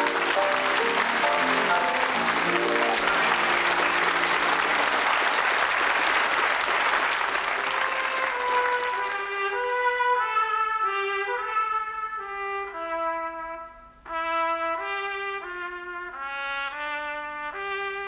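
A studio audience applauding over orchestral music, the applause fading out about nine seconds in. Brass instruments then carry a melody of clear, separate notes, with a short break about fourteen seconds in.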